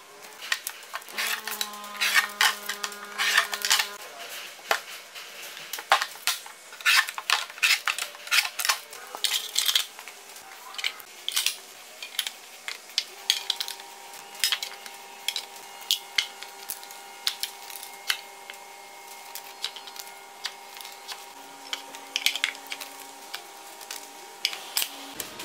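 Repeated clinks and knocks as prismatic LiFePO4 battery cells and metal parts are handled and set into a steel frame. Faint steady tones are held in the background.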